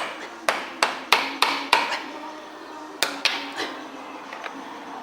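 Hammer striking steel suspension parts, a run of sharp ringing metallic blows: about six quick strikes, a short pause, then three more and two lighter taps.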